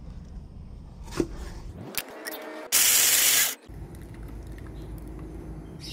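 Kitchen knife cutting tomatoes on a wooden cutting board, with two sharp chops about a second apart. Near the middle comes a short, loud burst of hissing noise.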